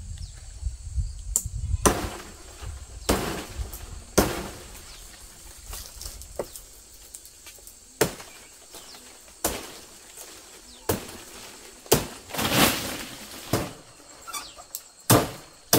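A series of about ten sharp knocks or strikes at uneven gaps of one to four seconds, over a faint outdoor background.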